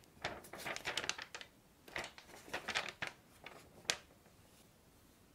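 Faint rustling and light taps of a sheet of paper being handled on a table: a scatter of short crinkles, with one sharper tap near four seconds.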